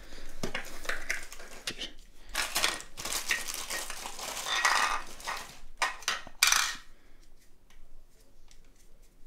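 Clear plastic bag crinkling and rustling as a dual camera-battery charger is pulled out of it, followed by a few short clacks of the plastic charger being handled and set down on a tile floor.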